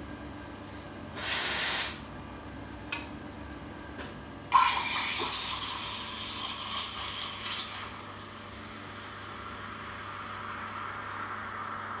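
Steam wand on an Iberital L'Anna two-group espresso machine. About a second in, a short blast of steam purges the wand. At about four and a half seconds, steam is opened into a milk jug: a loud, uneven hiss that settles into a steadier, quieter hiss as the milk is steamed.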